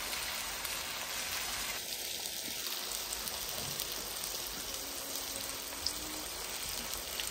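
Seasoned pork steaks frying in oil in a ridged pan: a steady sizzle.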